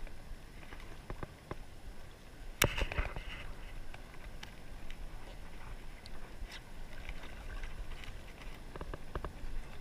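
Shallow sea water sloshing around a wading angler, with wind on the microphone, and small clicks and knocks as hands handle the fishing line and swivel close to the camera; the loudest is one sharp click about two and a half seconds in.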